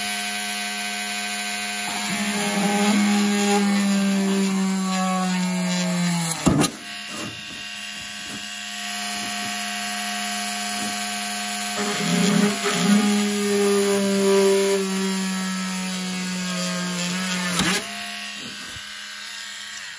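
Small handheld rotary tool with a thin, sharp drill bit running with a steady motor hum while drilling holes through a hard plastic turntable dust cover under light pressure. It is louder during two stretches of drilling, the first ending about six and a half seconds in and the second running from about twelve to eighteen seconds in, each ending with a sharp click, and hums more quietly in between.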